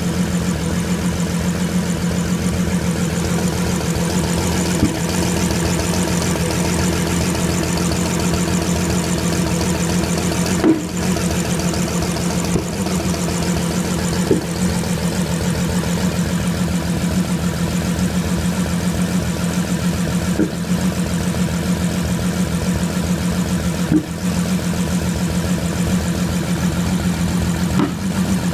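Bentley 6.0-litre twin-turbo W12 engine idling steadily, broken about six times at irregular intervals of a few seconds by a brief stumble: a misfire, caused by poor spark plugs.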